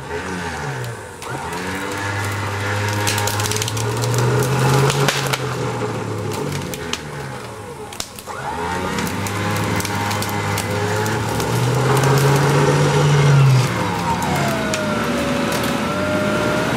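Mitsubishi Pajero engine revving up in two long surges as the 4x4 crawls over brush, dipping briefly between them, while dry branches crack and snap under the tyres throughout.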